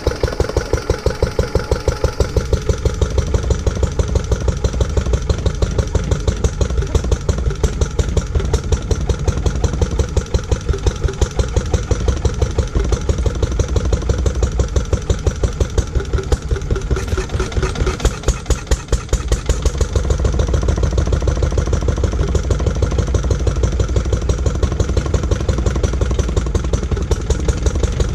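Lister D single-cylinder petrol stationary engine running steadily with a regular beat of firing strokes, freshly restored and newly started after more than twenty years laid up. The low end of the beat grows fuller near the end.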